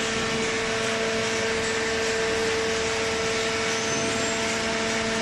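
Hydraulic cardboard baler's power unit running: a steady mechanical hum with a constant whine over a hiss.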